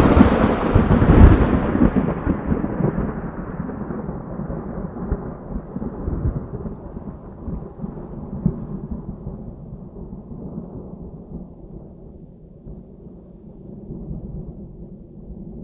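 A thunderclap: a loud crack with a second peak about a second in, then a long rumble that slowly fades and grows duller, swelling briefly a few times as it dies away.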